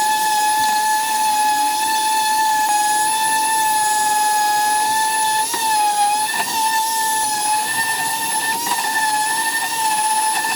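A high-speed electric power tool running with a steady high whine. Its pitch dips briefly a few times, about halfway through and again near the end, as it is loaded against the work.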